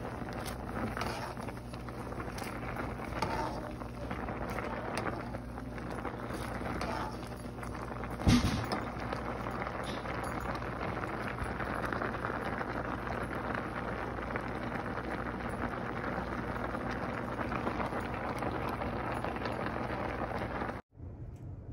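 Water at a rolling boil in a pot of pasta and vegetables, a steady bubbling hiss, with one sharp knock about eight seconds in. The sound cuts off abruptly near the end.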